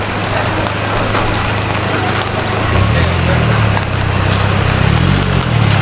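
Rain and city street noise, a steady hiss with a low, steady hum underneath. From about three seconds in, a low wavering drone that rises and falls joins in.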